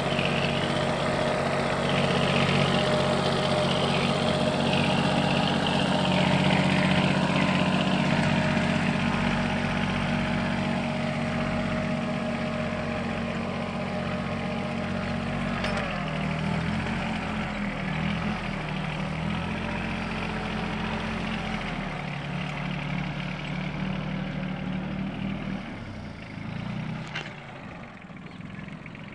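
Yanmar AF-16 compact tractor's diesel engine running steadily while pulling a two-disc reversible disc plough through dry soil. Its note wavers from about halfway through and grows fainter near the end.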